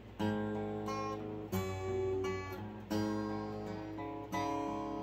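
Acoustic guitar played slowly, four chords strummed about a second and a half apart, each left ringing before the next.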